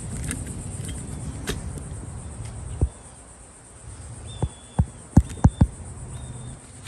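Steady high-pitched insect chorus, with several short low thumps in the second half and a few brief, flat high tones.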